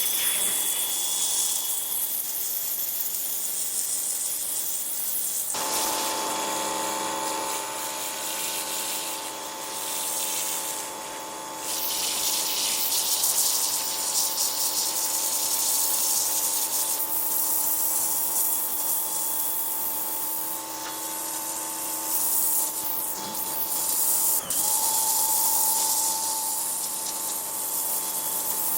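Pressure washer spraying a high-pressure water jet, a dense steady hiss. From about five and a half seconds in, a steady humming tone from the machine runs beneath the spray.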